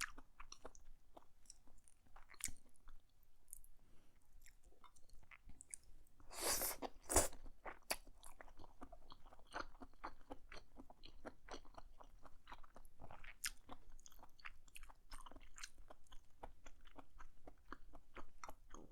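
A person chewing a meal of black bean noodles, mushrooms and shrimp: a run of many small mouth clicks, with a louder, longer noisy sound about six to seven seconds in.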